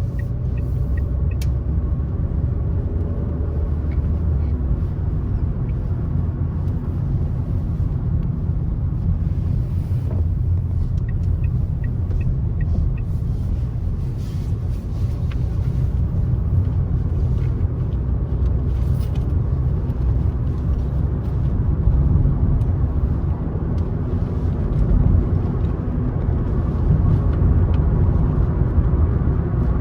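Car driving on a country road: a steady low rumble of tyres and engine, swelling slightly a few times.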